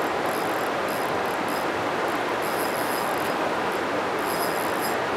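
Steady rush of the river, with short on-and-off spells of high-pitched whirring from a fishing reel as the angler reels in against a fish on the bent rod.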